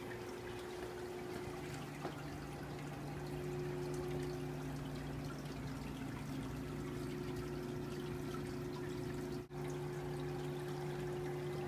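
Aquarium filter running: a steady trickle of water falling back into the tank over a low, constant motor hum. The sound briefly cuts out about nine and a half seconds in.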